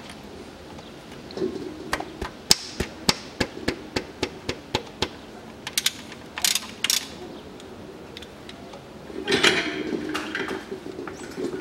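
Socket ratchet clicking in quick, uneven strokes as it loosens the 15 mm oil drain plug on the oil pan, a couple of clicks a second, with a short stretch of rustling noise near the end.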